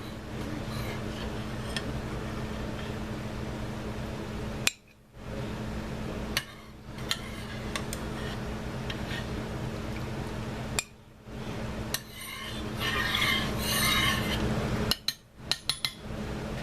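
Utensils clinking and scraping against a slow cooker crock and plate, with a stir through the pot in the later part, over a steady low hum.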